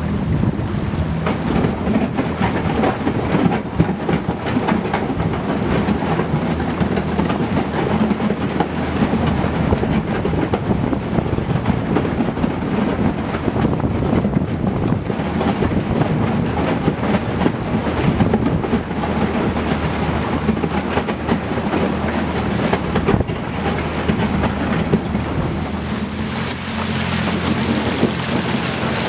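Boat motor running steadily under way, its low hum mixed with water rushing past the hull through slushy river ice. The rushing hiss grows brighter near the end.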